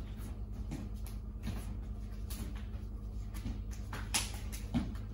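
Scattered short knocks and scuffs of two martial artists grappling at close quarters in a self-defence drill: shoes on the floor, hands and clothing against each other. A steady low hum runs underneath.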